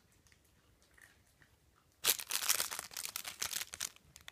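Clear plastic bag of dog biscuits crinkling as it is handled: a dense crackle starting about two seconds in and lasting about two seconds.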